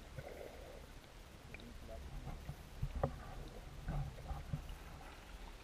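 Muffled underwater sound heard through a submerged GoPro's housing: a steady low rumble with a few faint knocks, the clearest about three and four seconds in.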